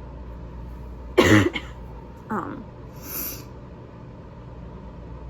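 One sharp, loud cough about a second in, followed by a short voiced throat sound and a quick sniff. The cough is a symptom of what the person takes for a seasonal mold-allergy reaction that hits the lungs, not a cold.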